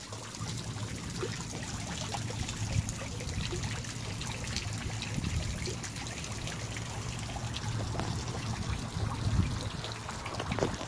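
Water dripping and trickling from the rims of a tiered rock-studded stone fountain into its pool: a steady patter of many small drops.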